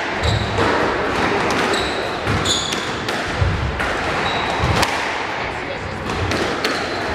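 Squash rally: the ball cracks off rackets and walls in a quick, irregular series of sharp knocks, with shoes squeaking briefly on the hardwood court floor now and then, over spectators talking.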